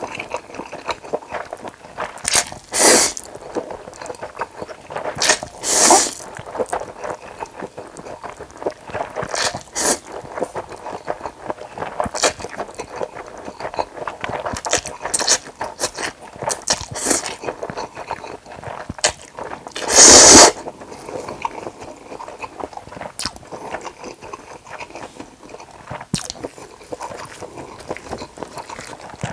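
Close-miked slurping and wet chewing of spicy mixed noodles (bibim-myeon): a steady run of small smacking mouth sounds broken by several loud slurps, the loudest about two-thirds of the way through.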